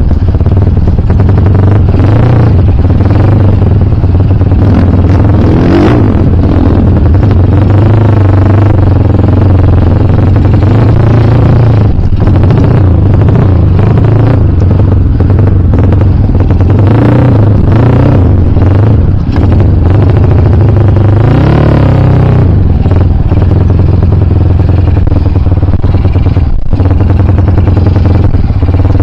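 Dirt bike engine running and being ridden, its revs rising and falling continually.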